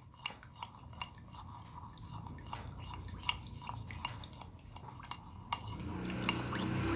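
Camel hump fat melting in a small pot over a low gas flame, giving scattered small crackles and clicks. A low hum grows louder near the end.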